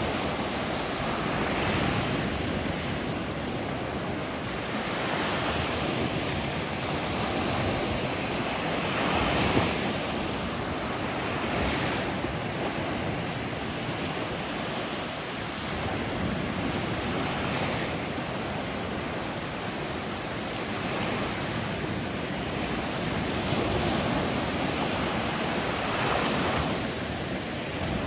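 Sea waves washing onto the shore in a continuous surf, swelling and falling back every few seconds.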